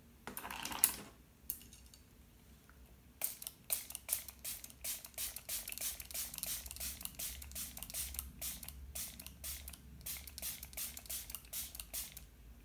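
Hand-held spray bottle misting water onto dry Brusho watercolour crystals on paper. One burst comes about half a second in, then from about three seconds in a long run of quick squirts, two or three a second.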